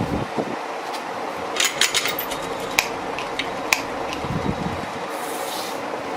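Workshop noise under a steady hum: a quick run of sharp clicks and taps, like small metal parts being handled, then two single sharp ticks, and a short hiss near the end.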